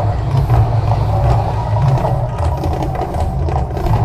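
Artificial volcano show erupting: a loud, deep, uneven rumble from the gas fire effects and the show's sound system, with drumming mixed in.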